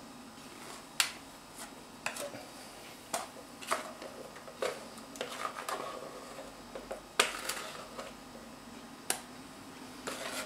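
Irregular light clicks, taps and scrapes of a plastic spatula working thick cake batter out of a plastic mixing bowl into a metal cake tin, with a slightly longer scrape about seven seconds in.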